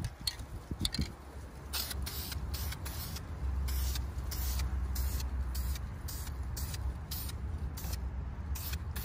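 Aerosol spray-paint can hissing in short, quick bursts, about two or three a second, starting a second or two in: gray primer being misted onto paper in a light, dry coat. A low steady rumble runs underneath.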